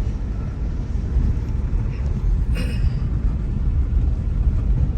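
Road noise heard from inside a moving car: a steady low rumble from the engine and the tyres on the road.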